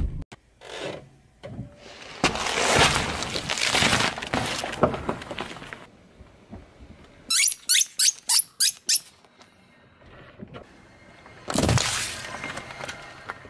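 Crackling and crunching for about four seconds as things are crushed under a car tyre. Then about seven quick squeaks in a row as rubber ducks are run over one after another. Near the end, a sudden burst and spray as a drink pouch is flattened and splits.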